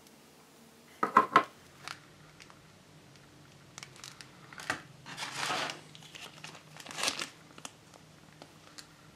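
Clear plastic parts bags crinkling in the hands in several short bursts, after a few sharp clicks about a second in.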